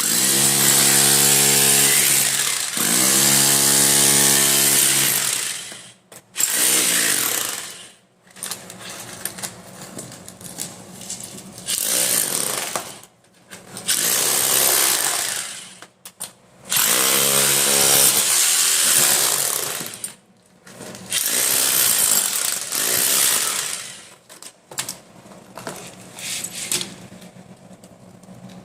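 Hammer drill run in repeated bursts of a few seconds each, about six, with short pauses between them. The motor whine rises in pitch as several bursts start.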